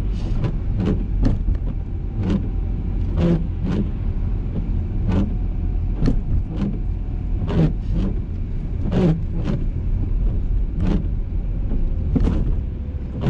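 Steady engine and road rumble inside a moving car's cabin, with short knocks every second or so.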